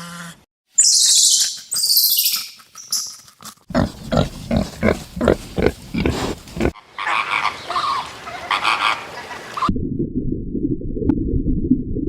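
Animal calls from several different animals, spliced one after another with abrupt cuts. First come high-pitched calls, then a run of short rhythmic calls about three a second, then a denser patch of calls, and near the end a low rumbling noise.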